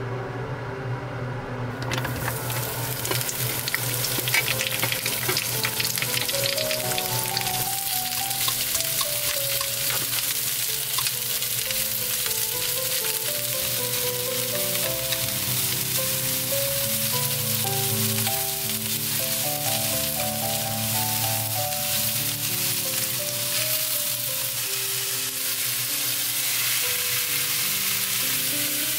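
Sliced vegetables sizzling in hot sesame oil in a frying pan, the sizzle starting about two seconds in as they go into the pan and holding steady while they are stir-fried with chopsticks. Background music plays underneath.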